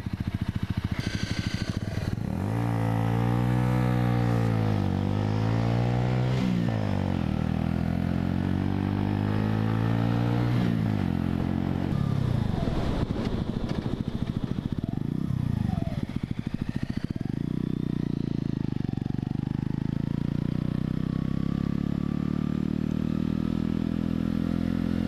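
Mutt Hilts 125's small single-cylinder engine idling, then pulling away about two seconds in and accelerating through the gears, the pitch rising and dropping back at each shift. In the second half it settles into a steady cruise.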